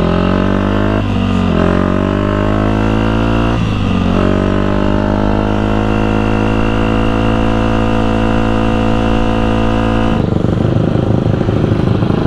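KTM dirt bike's single-cylinder engine accelerating, its pitch climbing and dropping back at upshifts about one and three and a half seconds in, then pulling steadily at cruise. About ten seconds in the throttle closes and the engine falls to a low, rough off-throttle sound as the bike slows.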